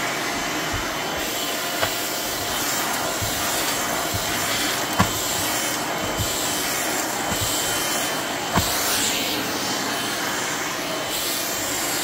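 Vacuum cleaner running steadily while its floor head is pushed over a hardwood floor and rug, with a few short knocks.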